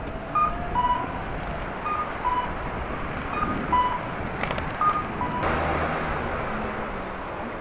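Pedestrian crossing's audible signal sounding a two-note cuckoo-style chime, a higher note then a lower one, repeating about every second and a half. Road and wind noise run underneath, and a louder rush of wind comes in a little past halfway.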